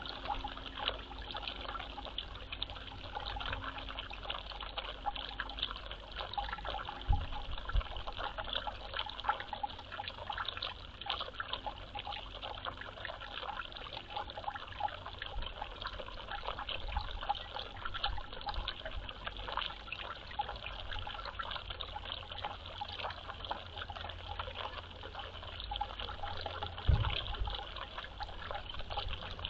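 Water trickling steadily, with a couple of brief low thumps, one about a quarter of the way in and one near the end.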